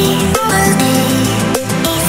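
Background music: an electronic track with a steady beat and bass line.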